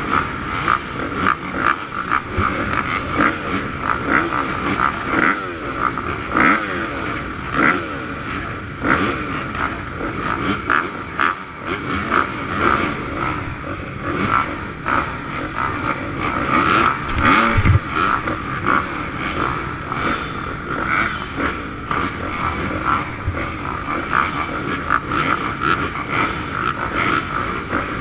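A line of motocross bikes revving at the starting gate, engines blipping up and down in quick, overlapping bursts over a steady din.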